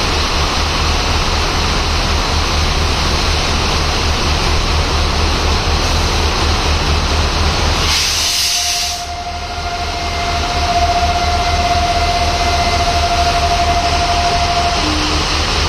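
Heavy rain over the low, pulsing rumble of a WDP-4's EMD two-stroke diesel engine idling. About halfway through, the rumble briefly drops out and a single steady horn note sounds for about six seconds.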